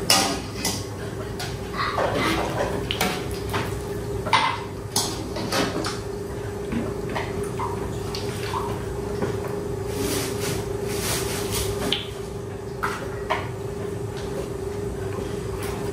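Metal cooking utensils clinking and scraping against a wok, tray and mixing bowl while rempeyek are fried, in scattered knocks with a quick run of taps about two-thirds of the way in, over a steady low hum.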